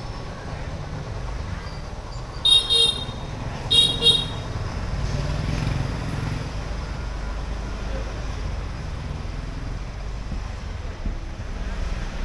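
Motorbike horn giving two quick double beeps about a second apart, over a steady low rumble of street traffic.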